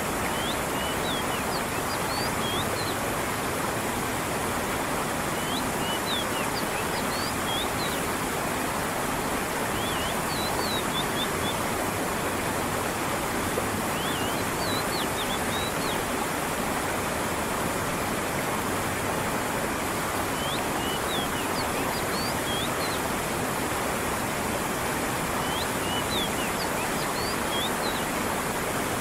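Steady rushing of a stream with falling water, with small clusters of short, high bird chirps every few seconds.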